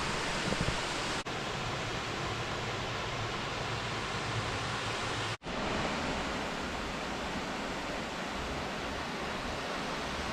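Steady rushing of a waterfall, an even wash of falling-water noise, briefly cut off twice, about a second in and about five seconds in.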